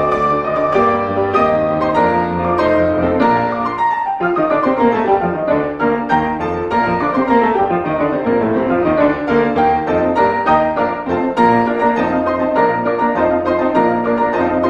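Solo classical piano music, with a quick falling run of notes about four seconds in.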